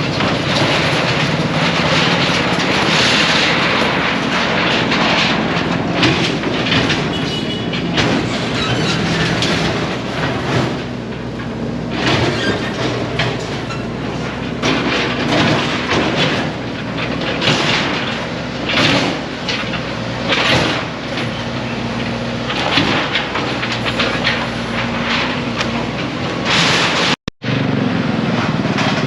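Demolition noise: a machine engine runs steadily under a stream of irregular clattering and crashing, as stalls are torn down and the debris falls.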